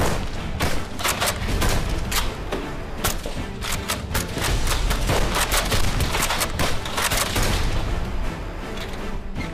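Rapid volleys of sharp shots over background music, the cracks coming thick and fast and thinning out after about seven seconds.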